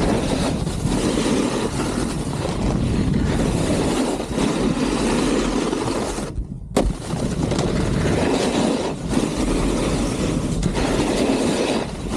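A snowboard carving fast down a groomed piste: the board scrapes steadily on the snow, mixed with wind rushing over the camera microphone. About six and a half seconds in, the scraping drops away for about half a second and comes back with a thud.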